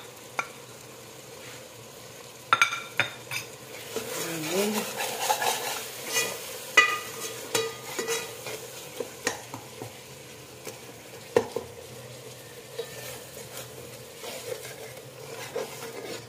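Metal ladle stirring and scraping a thick onion-tomato masala in a metal pot, clinking and knocking against the pot's sides and bottom, with a light sizzle as the freshly added ground spices fry in the oil. The clinks begin about two and a half seconds in and come irregularly after that.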